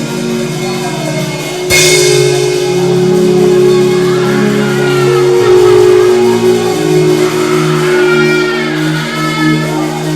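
Worship band music: sustained, slowly changing chords, with a sudden loud crash about two seconds in.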